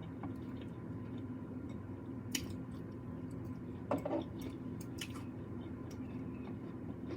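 A person chewing food quietly with wet mouth sounds, and a few short clicks, over a faint steady hum.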